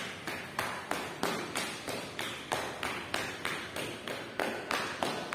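Hands clapping and slapping in a steady dholak-style rhythm, about three sharp strokes a second, each fading briefly.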